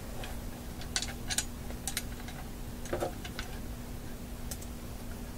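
Scattered light clicks and taps as a small clamp and a screwdriver are handled and fitted together, with a faint steady hum underneath.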